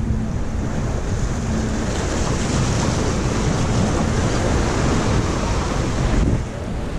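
Small waves washing against the stone blocks of a rock jetty, with wind rushing on the microphone. The rush drops off suddenly about six seconds in.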